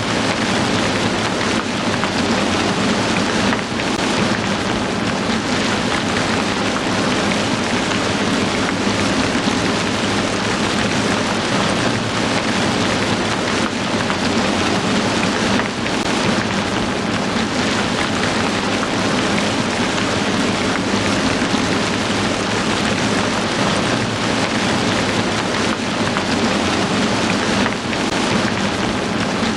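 Heavy rain falling steadily, a dense, even hiss of countless drops that barely changes.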